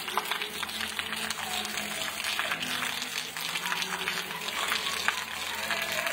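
Steady rain falling on a wet paved street: an even hiss of many small drops spattering.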